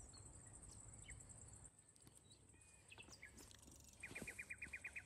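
Faint bird chirps, scattered at first, then a quick run of about ten even notes near the end.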